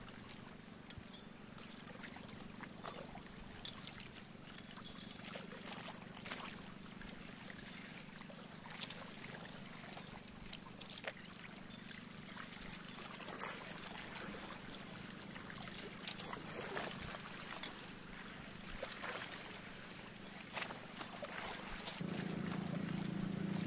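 Water lapping and splashing against the hull of a boat moving over calm sea, with many small splashes, over a low steady hum that gets louder near the end.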